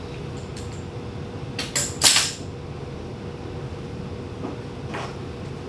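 Metal hand tools clanking: a torque wrench and an adjustable wrench taken off a camshaft bolt and set down, with a few light clicks and then one short ringing clatter about two seconds in. A steady low hum sits underneath.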